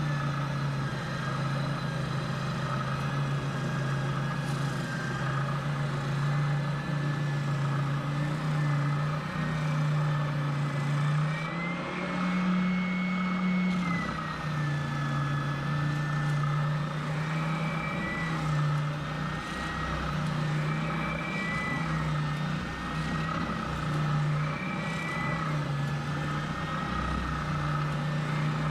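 DIY CNC router milling an aluminium plate: the spindle and drive motors run steadily, their pitch stepping and gliding up and down every few seconds as the cut changes.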